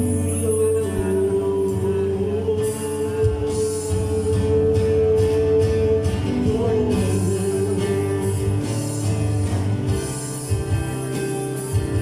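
A small live band playing a song: a singer holding long notes over acoustic guitar and keyboard.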